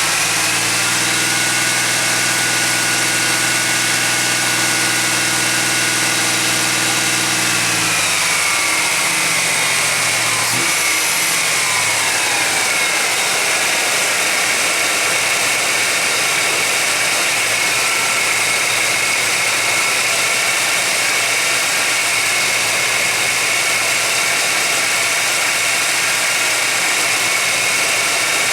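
1991 GMC Jimmy's engine idling, its speed sagging and dropping about eight seconds in, over a steady hiss. The engine is running while a vacuum leak is being hunted.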